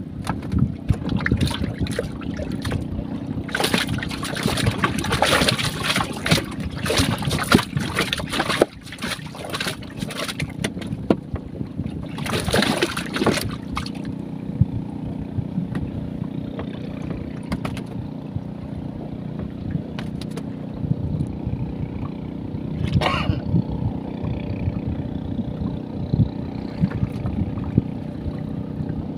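A small boat's motor running steadily, with water splashing and clattering noise through the first half, loudest about twelve seconds in, and one brief splash near the end.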